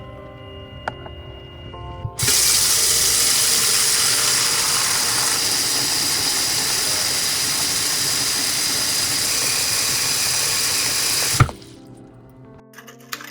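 Kitchen tap running hard into a sink or basin, filling it with water for dipping the panna cotta mold to release it. The flow starts about two seconds in, runs steadily for about nine seconds and stops abruptly with a clunk near the end, with soft lo-fi music before it.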